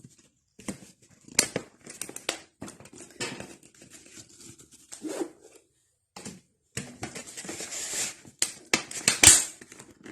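Empty plastic bottles being handled and pushed into boots: irregular crinkling, rustling and scraping with light knocks, busier and louder near the end.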